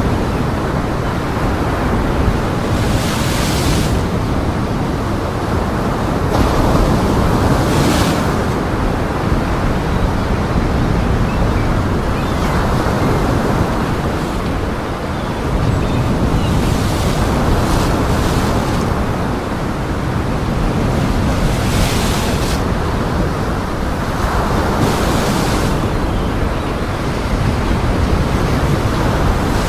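Heavy storm surf on Lake Michigan breaking on the shore in strong wind: a continuous loud rush of water, with a brighter, hissing break every few seconds.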